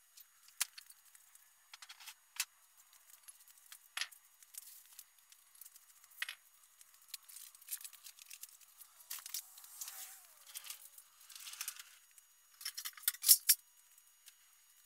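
Irregular clicks, clinks and rattles of tools and items being handled and moved about, with a louder burst of clatter near the end.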